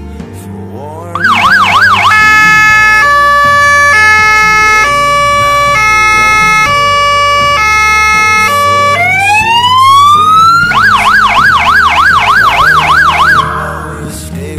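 Fire engine's electronic siren run through its modes over background music: a fast yelp of about four sweeps a second, then a two-tone hi-lo changing just under once a second, then a rising wail, then the fast yelp again, stopping with a short rough burst.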